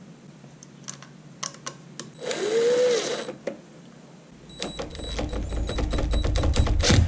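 DeWalt cordless drill-driver driving screws back into a Duramax fuel filter head. A short spin with a rising then falling whine comes about two seconds in. From about four seconds in the motor runs with a low hum and fast clicking that builds to the end.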